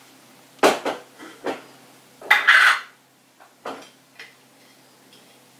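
A spoon knocking and scraping against a plastic food-processor bowl as ingredients are tipped in: several short clacks, a longer scraping clatter about two and a half seconds in, then a couple of lighter knocks.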